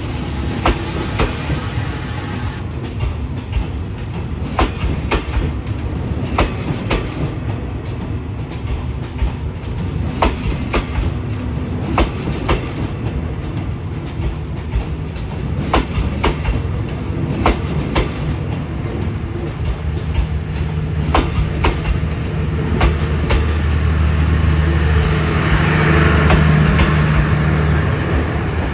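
Passenger train rolling past, its wheels clicking over rail joints every half second to a second over a steady rumble. In the last several seconds a steady low engine hum builds and then eases off.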